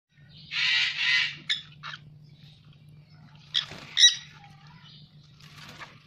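Dusky conure (Aratinga weddellii) calling: a harsh screech lasting nearly a second about half a second in, two short calls after it, then two sharp squawks close together near the four-second mark, the loudest. A low steady hum lies underneath.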